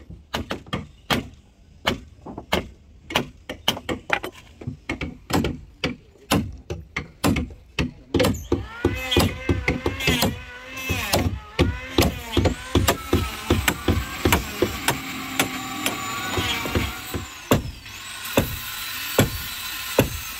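Rapid hammer blows on the wooden hull planking of a boat under repair, about two to three strikes a second, as old planks are knocked off. From about eight seconds in, high squeaks and creaks that rise and fall sound between the blows.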